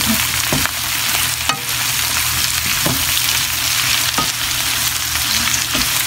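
Eggplant chunks, carrot and minced meat sizzling in a non-stick frying pan as a wooden spatula stirs and turns them, with a few light knocks of the spatula against the pan. A steady low hum runs underneath.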